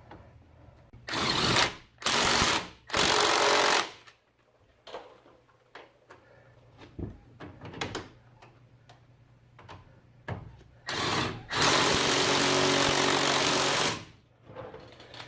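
Power tool, likely an impact wrench, run in bursts to drive in 13 mm brake caliper and bracket bolts. Three short runs come in the first few seconds, then a short one and a longer run of about two seconds near the end.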